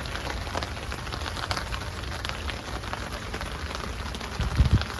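Steady rain falling, with many single drops ticking on surfaces close by. A dull low thump comes about four and a half seconds in.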